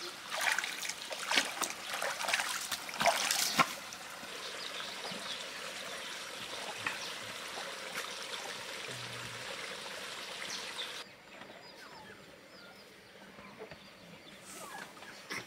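Splashing in shallow stream water among caught fish for the first few seconds, then the steady trickle of a flowing mountain stream. About eleven seconds in the water sound stops abruptly and a much quieter background follows.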